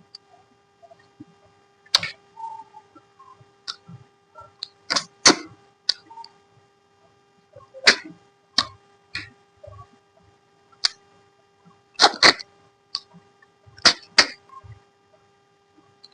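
Close-up mouth eating sounds: sharp slurps, sucks and lip smacks coming every second or two, some in quick pairs.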